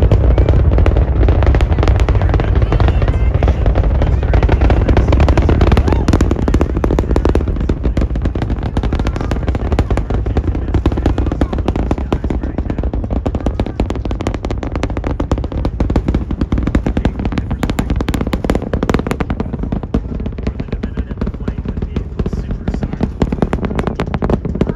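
SpaceX Super Heavy booster's 33 Raptor engines during ascent: a deep rumble with dense, rapid crackling pops, slowly fading as the rocket climbs away.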